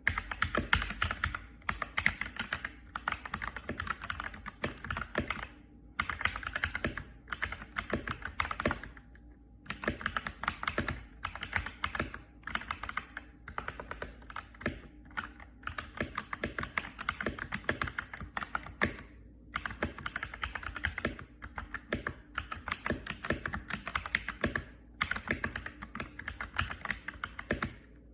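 Mechanical keyboard with Akko Matcha Green switches, tape-, foam- and coin-modded, typed on slowly with no desk mat under it: a steady patter of keystrokes in runs, broken by brief pauses.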